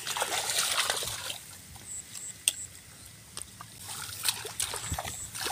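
Shallow muddy water sloshing and splashing as hands grope through it for fish, with scattered small clicks and rustles.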